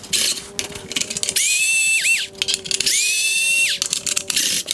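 Cordless electric screwdriver backing out T20 Torx screws from a plastic headlight bracket: after some light clicks, two short whines, each rising as the motor spins up, holding, then dropping as it stops, with a brief blip after the first.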